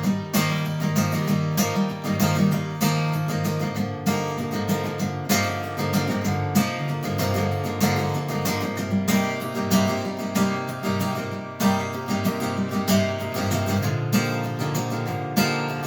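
Instrumental break in a pop song: acoustic guitar strummed in a steady rhythm, without vocals.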